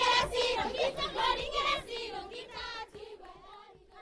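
Children singing, the song fading out over the last second or two.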